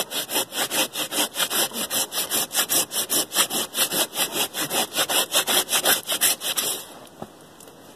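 Japanese-style 'samurai' hand pruning saw cutting through the bark of a felled poplar log in quick, even strokes, scoring a ring around the log. The sawing stops about seven seconds in.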